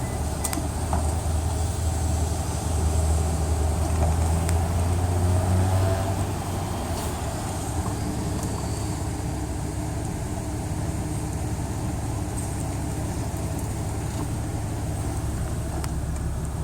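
Car engine and cabin hum heard from inside the car, growing louder for a few seconds about two seconds in, then settling to a steady low hum.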